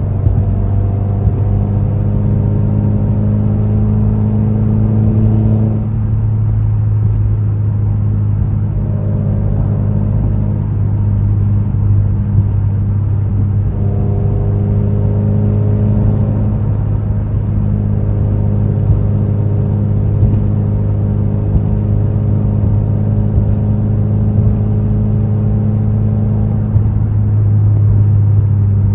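Subaru WRX's turbocharged flat-four engine and road drone heard from the driver's seat while driving: a steady low drone, with the engine note rising gently and dropping back several times.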